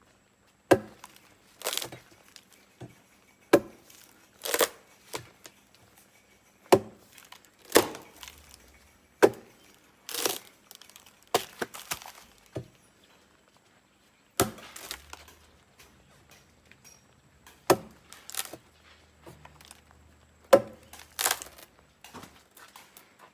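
Repeated chopping strikes of a blade into plant material, about one every three seconds, several followed by a short swishing rustle.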